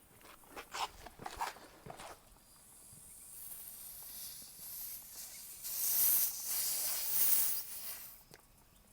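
A few light clicks and knocks from handling the tire-plug insertion tool, then a steady hiss for several seconds, air escaping from the puncture in the tractor tire, that fades out shortly before the end.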